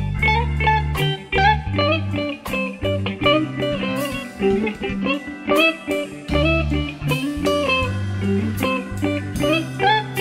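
Electric guitar solo in a slow blues-soul ballad: single-note lines with bent notes, over the band's bass notes and drum hits.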